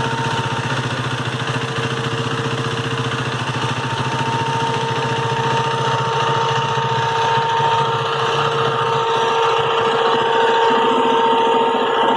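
KTM 390 Duke's single-cylinder engine idling, its exhaust pulsing steadily, with a steady whine running through it; it grows a little louder about halfway through.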